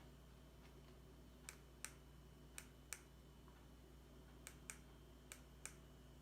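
Near silence: a low steady room hum with eight faint, sharp clicks that come in four pairs.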